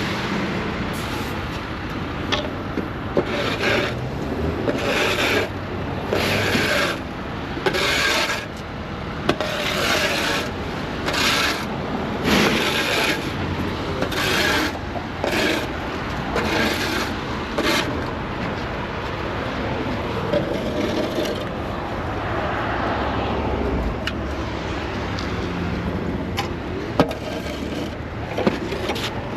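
Steel shovel scraping over asphalt in repeated strokes, about one a second. The strokes stop about eighteen seconds in, leaving a steadier scraping noise.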